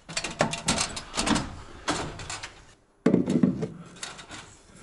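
A run of clanks and rattles from an aluminium stepladder being climbed and handled, then a dull thump and rubbing as a PVC elbow pipe is pushed against the wooden framing.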